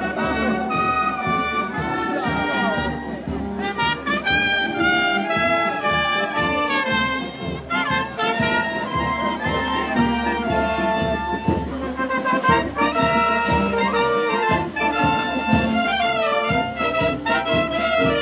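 Marching wind band of clarinets, saxophones, trumpets and tubas playing a processional tune together, over a steady beat.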